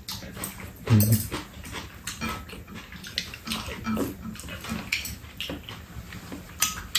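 Mealtime eating sounds: slurping and chewing spoonfuls of soup and curry, with spoons clicking against bowls at irregular moments. A brief low voice sound comes about a second in.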